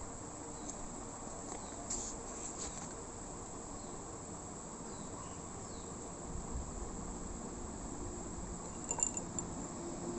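Crickets chirping steadily in the background, with a short cluster of clicks about nine seconds in.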